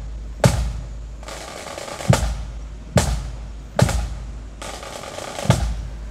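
Marching drums beating a slow, steady cadence for a procession: a hard strike a little more than once a second, with a rushing snare roll filling the gap twice.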